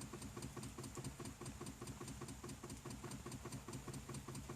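Faint, rapid, evenly repeating clicking from under the hood of a BMW 528i that will not start and shows no dash lights. The owner thinks it could be a fuse, the alternator or the battery.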